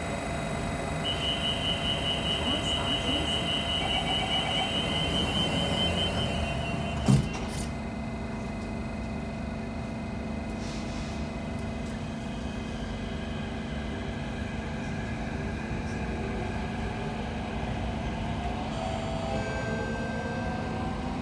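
Thomson-East Coast Line T251 metro train's door-closing warning: a rapid high beeping for about six seconds, then the sliding doors shut with a sharp thud about seven seconds in. The train then hums steadily, and near the end the traction motors' whine rises as it starts to pull away.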